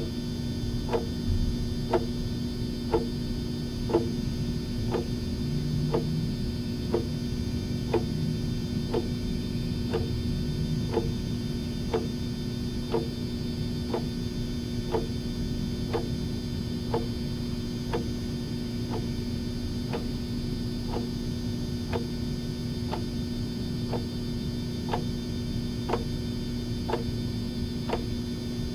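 A clock ticking steadily, one tick a second, over a steady low hum.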